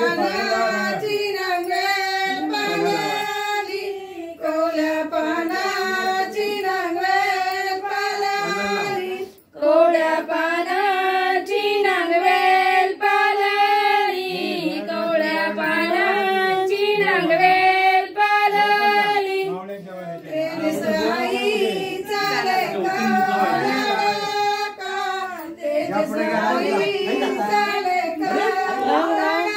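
A woman's high singing voice in a melodic song, long held notes that waver in pitch, with little or no instrument behind it. The singing breaks off briefly about nine seconds in, then goes on.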